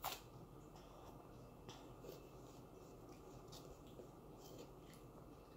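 Near silence with a toddler's small finger-food eating sounds: a sharp smack of fingers pulled from the mouth right at the start, then a few faint ticks and rubs from picking at food on the high-chair tray.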